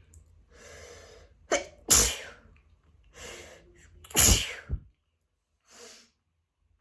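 A person sneezing twice, about two seconds apart, each loud sneeze preceded by a sharp intake of breath, with a short breath sound near the end. It is a hay-fever sneezing fit brought on by grass and flower pollen.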